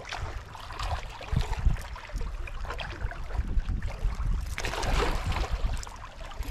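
Wind rumbling on the microphone over sea water washing against breakwater rocks, with small clicks and rustles as a lure is worked out of a fish's mouth by gloved hands. The wash swells louder a little past the middle.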